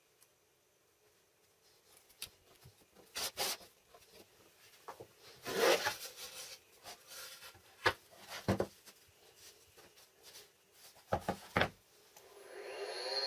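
Wooden parts being handled and fitted: scattered sharp knocks and a brief rubbing scrape of wood on wood. Near the end a small electric motor starts and rises in pitch.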